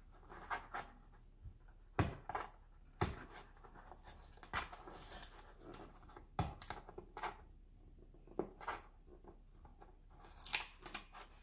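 Fingers picking and peeling at the edge of a cardboard box: small, irregular tearing and scratching sounds, with a few sharp clicks, the loudest about two, three, six and ten seconds in.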